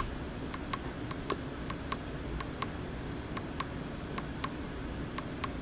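Small push buttons on an LED frequency counter module pressed repeatedly to step a digit through its values, each press a short click, often in quick pairs, roughly one or two presses a second.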